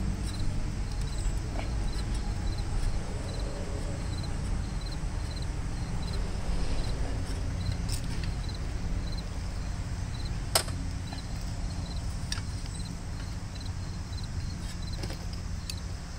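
An insect chirping in short high pulses about twice a second over a steady low rumble, with a few sharp metal clicks as parts of a tractor are handled, the loudest about two-thirds of the way in.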